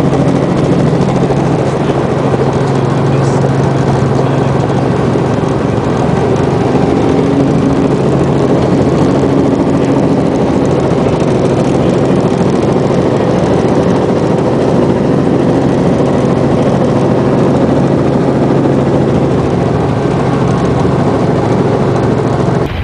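Robinson R44 Clipper II helicopter running, heard from inside the cabin: its piston engine and rotors make a loud, steady drone over a low hum.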